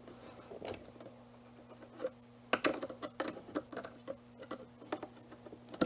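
Irregular light clicks and taps of hands working with tools and wires inside an opened lithium battery case, coming thicker from about halfway through, over a faint steady low hum.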